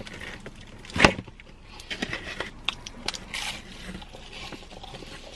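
Pizza with a crisp, cracker-like crust being ripped apart by hand: a sharp crack about a second in, then scattered small crackles and rustles.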